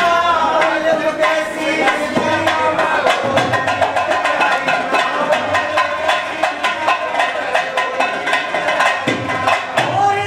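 Harmonium and dholak playing Haryanvi folk music: a sustained reedy harmonium melody over a fast, steady run of hand-drum strokes.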